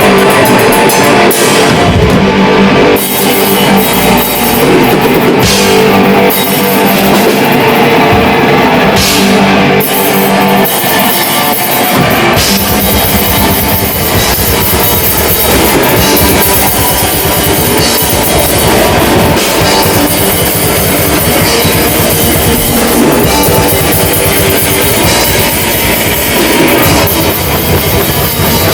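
Live death metal band playing loud distorted electric guitars and a drum kit. About twelve seconds in, the drums turn to fast, dense drumming under the riff.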